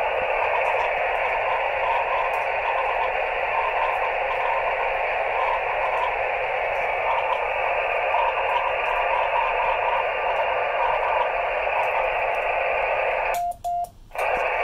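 Radio receiver hiss from a 10 GHz CW station, confined to a narrow middle band of pitch, with a faint keyed Morse tone coming and going through the noise: a weak signal received by rain scatter off storm cells. Near the end the hiss cuts out briefly with a short sidetone beep as the station is keyed to transmit.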